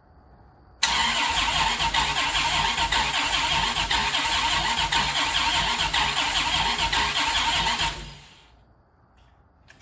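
The starter cranks the Dodge Viper GTS's 8.0-litre V10 steadily for about seven seconds, starting suddenly about a second in and stopping near the end, without the engine catching. The engine turns over but doesn't fire because the fuel pump isn't kicking on.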